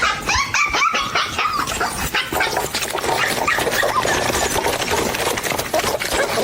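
A dog yipping and barking, with high-pitched calls strongest in the first two seconds.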